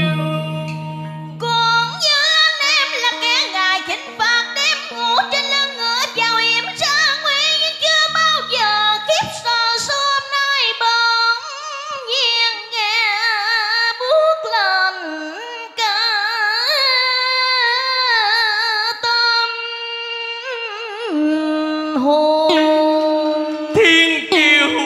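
A woman singing cải lương with wide vibrato and sliding ornaments over an accompaniment of guitar, đàn sến and organ. A few seconds before the end the voice stops and the instruments play on alone.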